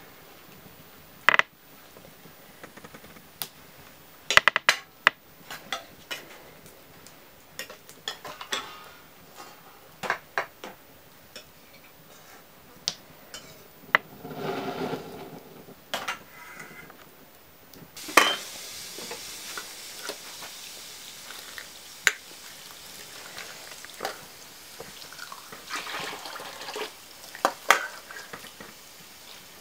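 Metal ladle clinking and scraping against a wok and a steel plate as cooked greens are stirred and scooped out, in scattered sharp clinks with a longer scrape about halfway through.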